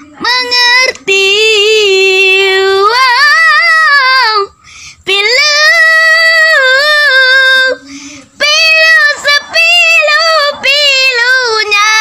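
A boy singing in a high voice, holding long notes with a wavering vibrato. He pauses briefly twice, about four and a half and eight seconds in.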